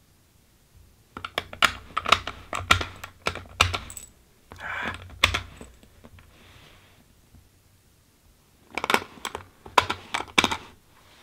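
.223 cartridges clicking against a polymer PMag rifle magazine as they are handled and pressed in. There are two bursts of quick sharp clicks: one starts about a second in and lasts about four seconds, and a shorter one comes near the end.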